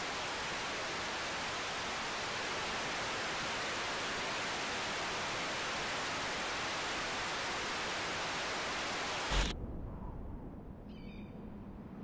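Steady television static hiss, cut off by a sharp click about nine seconds in. After it, the sound drops much lower, with a brief high chirping shortly before the end.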